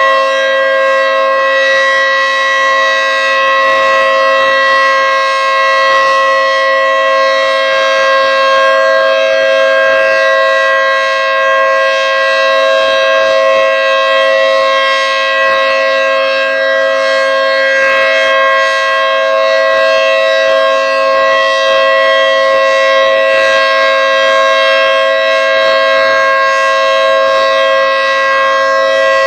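Federal Signal 3T22 three-tone outdoor warning siren sounding its steady alert signal: a loud chord of several tones held at constant pitch, with no rise or fall.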